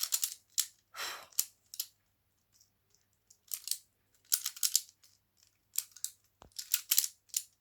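Plastic twisty puzzle cube being turned quickly by hand: quick clusters of plastic clicks and clacks as the layers snap round, in short spurts with brief pauses between them.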